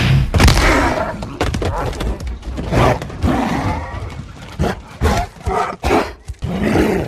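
A heavy-metal band's last crashing hit dies away in the first second, followed by scattered shouts and thumps that grow fainter.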